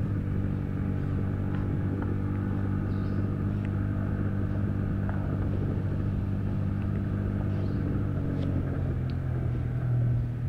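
Yamaha Vixion's 150 cc single-cylinder engine running steadily in a low gear as the motorcycle rolls down a steep descent, the engine helping to brake. Its pitch rises slightly near the end.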